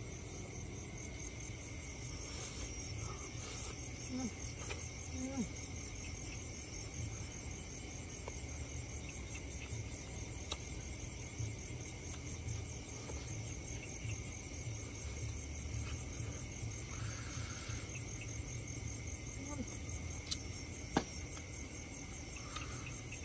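Crickets chirring in a steady high trill, with a second higher insect trill pulsing evenly above it. A few small clicks and taps sound over the chirring.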